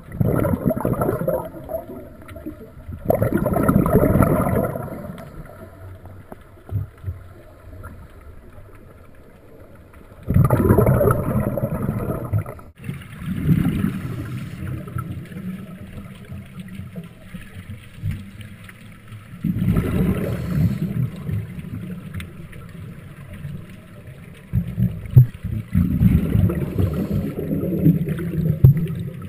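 Sea water sloshing and gurgling around a boat, coming in loud surges every few seconds.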